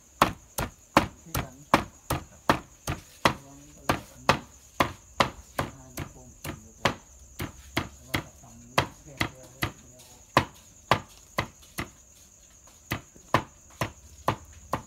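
A cleaver chopping and mincing on a thick round wooden chopping block: quick, even knocks about three a second, with a short pause about twelve seconds in. A steady high insect trill, typical of crickets, runs behind.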